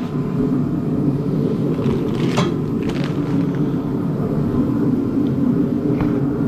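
A steady low mechanical hum, with a few faint light clicks about two and three seconds in and again near the end.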